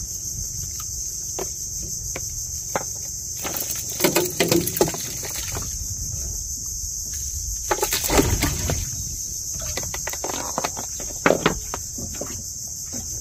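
Steady, high-pitched drone of insects in the shoreline trees. Scattered knocks and rustles of handling in a wooden boat sit on top of it, loudest about four, eight and eleven seconds in.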